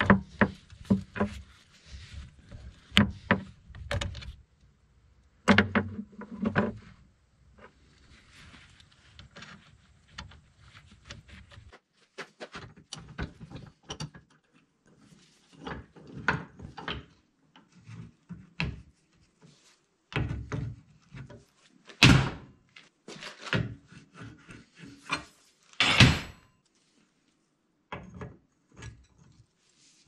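Hand tools knocking and clanking on metal parts: wrench work at a hydraulic fitting, then a filter housing being clamped in a steel bench vise and turned with a socket and breaker bar. A string of sharp clicks and knocks, with two loud clanks in the last third, over a low rumble that cuts off partway through.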